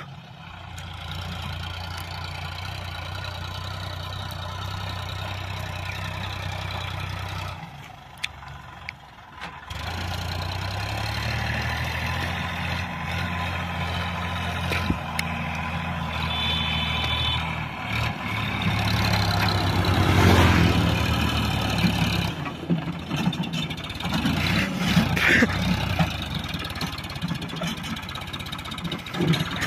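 Sonalika DI-740 III tractor's diesel engine running while pulling a loaded trolley. It drops away for a couple of seconds about a quarter of the way in, then comes back louder and more uneven under load as the tractor climbs onto the road, so heavily loaded that its front wheels lift off the ground.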